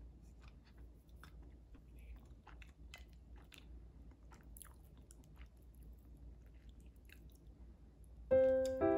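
Faint close-up eating sounds: a person chewing and biting mango toast, with soft irregular clicks and crunches and a spoon scooping yogurt and mango from a ceramic bowl. Near the end, loud electric piano music comes in.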